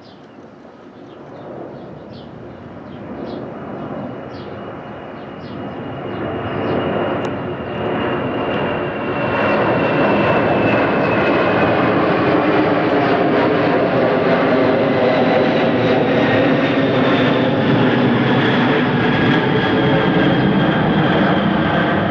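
Airliner flying low overhead. The engine noise grows louder over about ten seconds, then holds loud, with a high whine that slowly falls in pitch as it passes.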